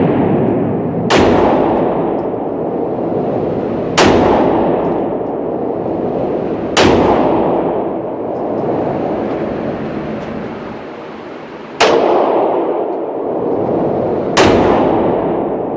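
Gunshots fired singly and slowly, five in all, roughly three seconds apart with a longer pause before the fourth. Each shot rings out in a long echoing tail.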